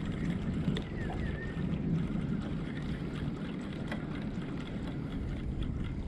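Steady low wind rumble on the microphone, with faint scattered clicks.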